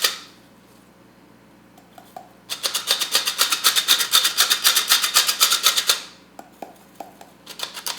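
Sieve being shaken in quick, even strokes, sifting powdered sugar onto cookies with a rhythmic rasping. The shaking stops at the start, runs again from about two and a half seconds in for about three and a half seconds, and starts up again near the end.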